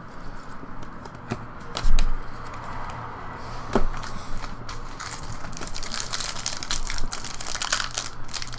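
A few light knocks and clicks from card handling, then, from about five seconds in, the crinkling and tearing of a trading card pack's wrapper being ripped open.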